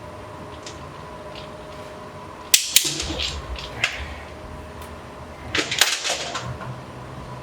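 Sharp metallic clicks and clatter of hard metal parts being handled and set down, in two short bursts about three seconds apart, over a steady low hum.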